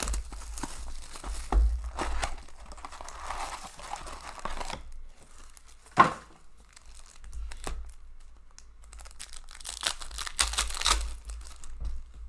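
A sealed hockey card box being opened and its wrapped foil packs handled: packaging tearing and crinkling, with one sharp click about six seconds in and another burst of crinkling near the end.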